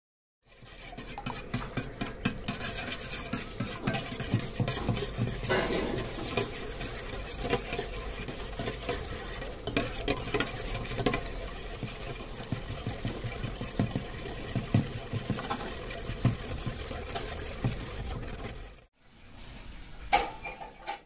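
Wire whisk beating raw eggs in a stainless steel bowl: a fast, continuous clatter of the wires clicking and scraping against the metal. It stops near the end, and after a short gap comes a softer scrape with one sharp clink.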